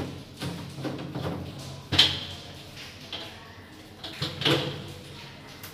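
Hard plastic knocking and scraping as a lowdown flush pipe is worked onto the outlet under a plastic toilet cistern, with two louder knocks, about two seconds in and again near the end.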